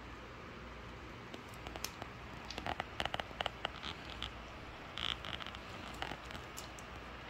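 A small dog chewing and crunching a duck bone: irregular sharp cracks and crunches, bunched from about two and a half seconds in and again around five seconds, over a faint steady hiss.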